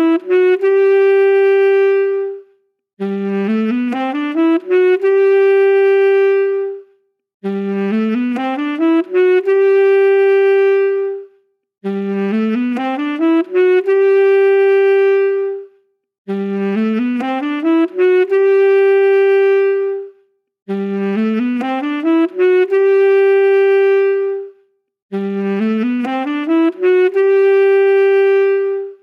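A saxophone plays the same short phrase over and over: a quick rising run of notes ending on a long held note. The phrase repeats about every four and a half seconds, with a brief silence between repeats.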